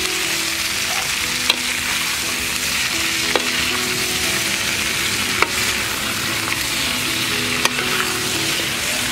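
Eel pieces frying in a hot wok, a steady sizzle, while a metal spatula stirs and tosses them, clanking sharply against the wok about every two seconds.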